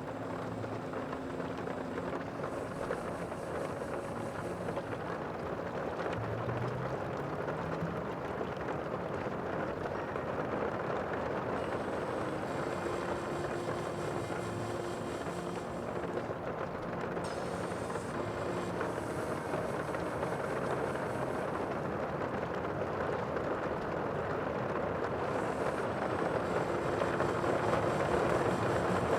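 Steady rushing of sea water, slowly growing louder, with faint low tones coming and going underneath.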